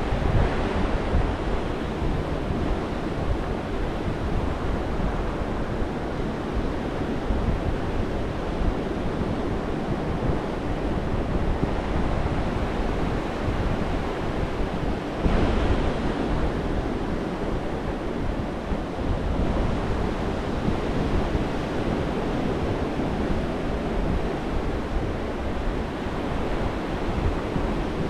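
Gulf of Mexico surf breaking and washing up the sand in a steady wash, with wind rumbling on the microphone. One surge comes through a little louder about halfway through.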